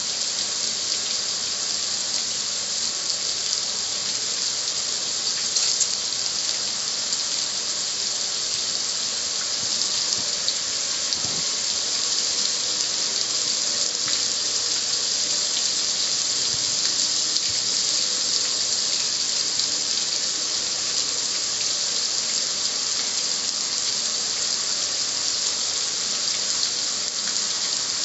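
A steady jet of water spraying onto the metal lid of a gas grill, a continuous hiss of splashing water with runoff dripping down the front.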